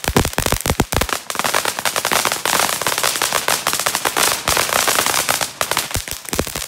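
Ground fountain firework spraying sparks: dense, rapid crackling throughout, with a thicker hissing rush through the middle.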